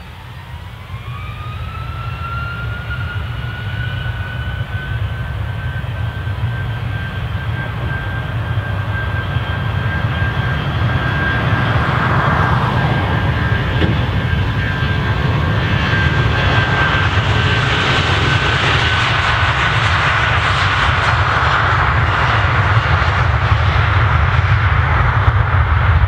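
Boeing 757-200 airliner's two jet engines spooling up to takeoff power as it accelerates down the runway: a high whine rises in pitch over the first couple of seconds and then holds steady, over a deep roar that keeps getting louder as the jet rolls past.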